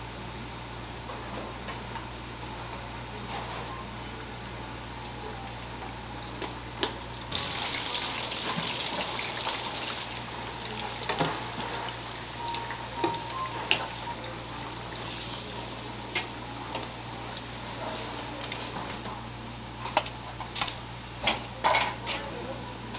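Tofu pieces deep-frying in a commercial fryer's oil: a steady bubbling sizzle over a low hum, turning louder and brighter about seven seconds in. Metal tongs click now and then, with a cluster of clinks against the wire rack near the end as the fried tofu is lifted out.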